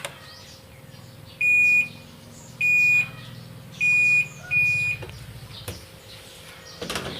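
Panasonic top-load washing machine's control panel beeping: four loud high single-pitch beeps, the first three about a second apart and the fourth close behind the third. A faint low hum runs underneath.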